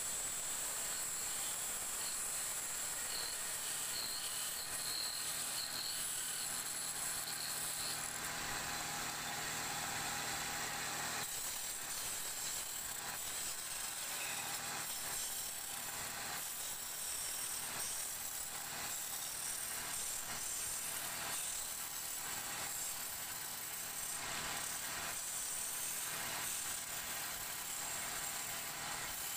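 Wood lathe running with a turning tool cutting a spinning wooden spindle: a steady hiss of the cut over the hum of the motor. About eleven seconds in, the cutting noise changes and breaks into short, uneven scraping strokes.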